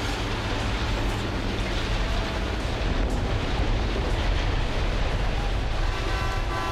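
Heavy diesel demolition machinery running with a loud, steady rumble. Near the end a horn starts to sound over it.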